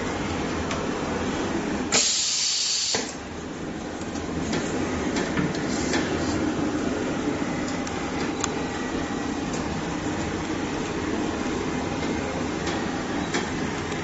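LY 9011 hot bar bonding machine humming steadily, with a short, loud hiss of compressed air about two seconds in that cuts off suddenly about a second later. A few faint clicks follow.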